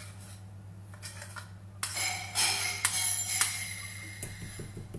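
A utensil scraping cake batter out of a mixing bowl into a cake dish, with a louder rasping scrape about two seconds in lasting over a second, then quick light scraping strokes near the end. A steady low hum runs underneath.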